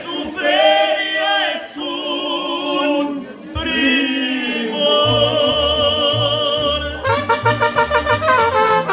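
Mariachi band playing live: long, held, wavering notes open the passage, a deep bass beat comes in about five seconds in, and trumpets join with quick repeated notes at about seven seconds.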